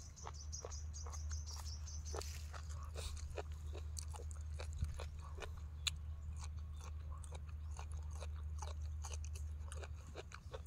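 Close-up crunchy chewing and biting of raw vegetables, including a raw yardlong bean, with many small crackles and clicks. In the first two seconds a bird gives a high, falling, chirping call, and a steady low hum sits underneath.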